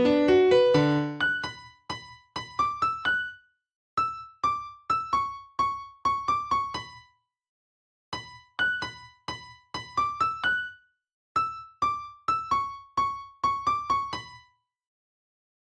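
Background music: a keyboard melody of short, plucked notes in repeated phrases with short pauses between them. Fuller low chords drop out about a second in, leaving the melody alone.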